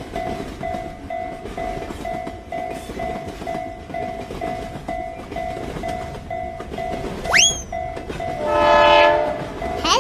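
Japanese level-crossing alarm ringing its warning bell about twice a second over the rumble of a passing train. About seven seconds in there is a quick rising whistle-like sweep, then a train horn blast lasting about a second near the end.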